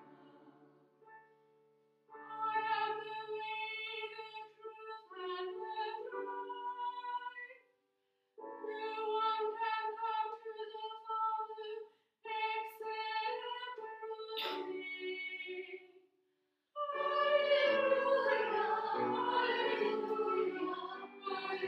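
Church singing in phrases with steady held notes and short breaks between them. It turns fuller, with more voices together, in the last few seconds.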